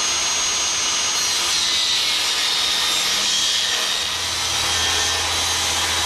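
Portable jobsite table saw running with a steady high whine as a sheet of plywood is fed through the blade; the sound grows heavier about four seconds in.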